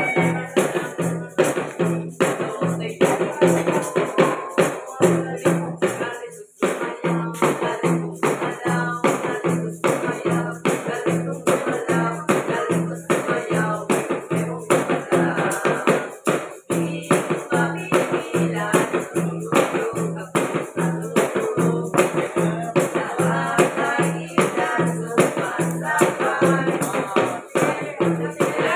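Christmas carolers playing live: a tambourine and shakers rattling in a steady beat, with voices singing along.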